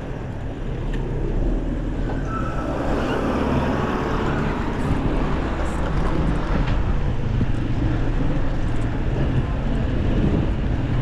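A motor vehicle's engine running steadily nearby, a low hum amid street traffic noise.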